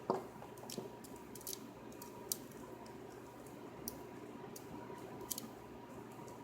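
A city rake working the pins of a small brass padlock: scattered faint metallic clicks and scrapes, with a soft knock right at the start.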